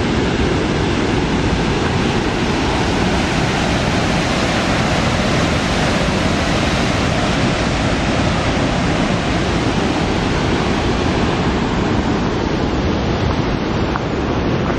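Waterfall pouring through a narrow rock canyon: a loud, steady rush of falling water.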